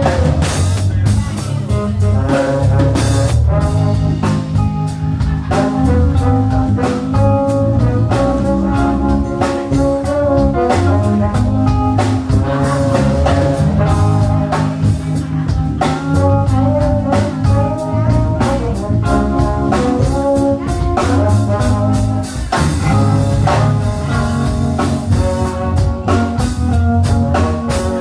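Band music in a jazz-blues style: drum kit keeping a steady beat under guitar and horn lines.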